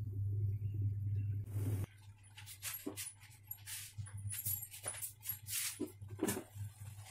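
Kitchen handling sounds: scattered light clinks and knocks of steel pots, lids and utensils on a gas stove. A low steady hum, ending abruptly with a short hiss, runs for about the first two seconds.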